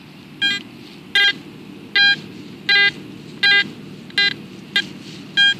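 Metal detector beeping on a buried target, eight short beeps of the same pitch about one every 0.7 seconds as it is passed back and forth over the hole: the target signal, reading in the 80s, is still there.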